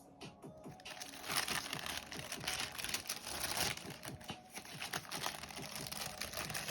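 Tissue paper crinkling and rustling as it is pulled and unfolded in a sneaker box, loudest from about a second in.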